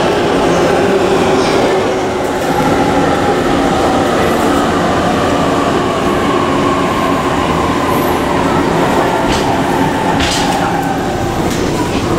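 JR 185 series electric train running slowly alongside a platform: steady wheel and running-gear rumble with a hum that falls gently in pitch, as when the train is slowing. Two short sharp noises come about nine and ten seconds in.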